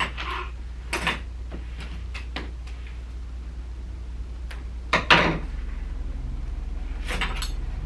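Scattered knocks and clatters of objects being handled and moved at a counter, the loudest a double knock about five seconds in and a cluster near the end, over a steady low hum.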